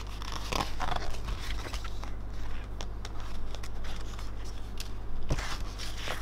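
A glossy paper brochure being handled and folded open, rustling and crinkling, with the densest bursts near the start and again near the end. A steady low hum runs underneath.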